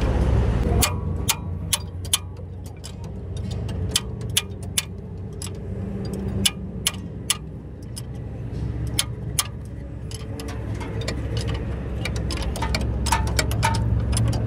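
Sharp, irregular metallic clicks of steel spanners being fitted, turned and repositioned on the nuts of a truck's torque rod, over a steady low rumble.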